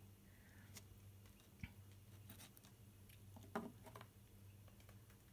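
Near silence with a faint low hum, broken by a few faint clicks and taps of small plastic pots being picked up and set down on a table.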